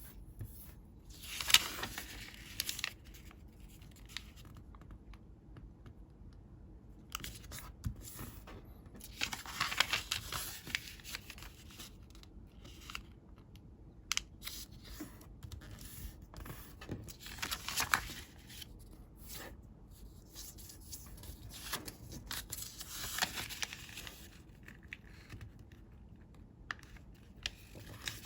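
Sheets of colored origami paper being handled, folded and creased, rustling in separate bursts with quieter pauses between them.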